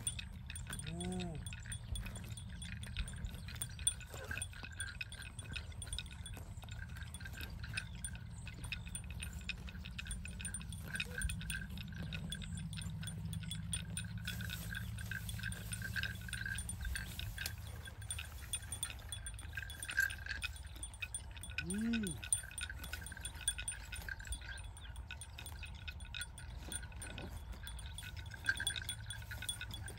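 Bells on grazing white zebu-type cattle clinking and jingling on and off as the animals move their heads. Two short calls that rise and fall in pitch come through, one about a second in and one near the end of the second third.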